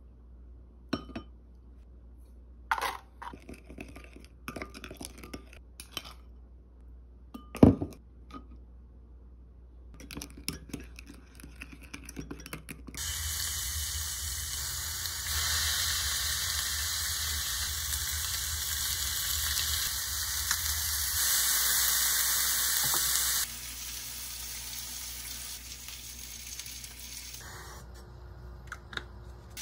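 Scattered light clicks and knocks of mixing sauce in a glass bowl, one sharp knock about eight seconds in. About halfway through, chicken skewers start sizzling loudly in a hot oiled frying pan, a steady hiss that cuts off suddenly about ten seconds later.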